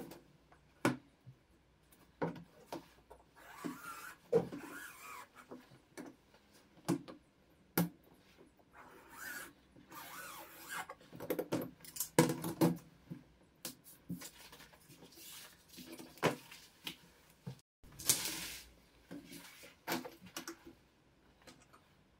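Hands working sheet material on a cutting mat: rustling as the unrolled sheet is smoothed and shifted, with scattered clicks and taps as a steel ruler is set down and moved. A longer rustle comes about three-quarters of the way in.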